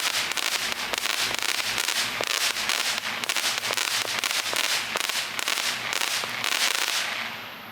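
Fireworks crackling: a dense, continuous run of sharp pops over hiss that dies away near the end.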